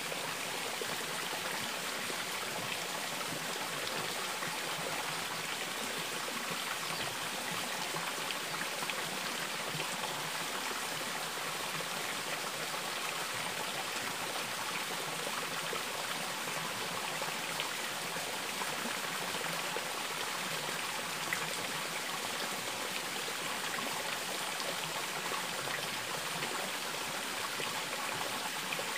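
Steady running water, a small stream trickling over rocks, with nothing else standing out.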